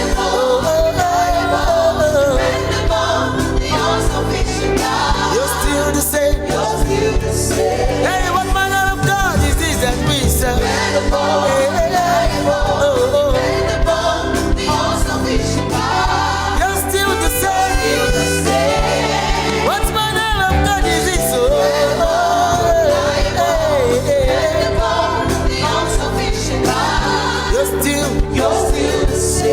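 Gospel music: a singer's voice in long, sliding melodic lines over steady instrumental backing.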